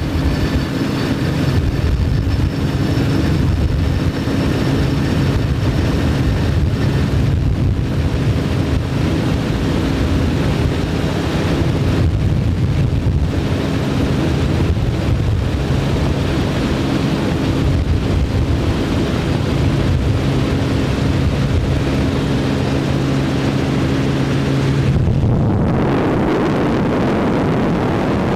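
Turbine-powered offshore powerboat running at high speed: a steady engine sound with a faint high whine over the rush of water and wind. About 25 seconds in the engine tones drop away and a rushing noise takes over.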